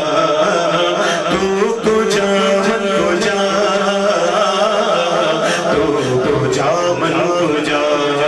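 Male naat singer singing a melodic phrase into a microphone through a sound system, drawing out long held notes.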